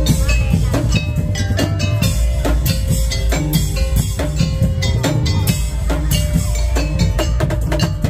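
Madurese tong-tong (daul) ensemble playing live: a fast, dense run of drum and wood-block strikes over a steady heavy bass, with ringing pitched notes on top.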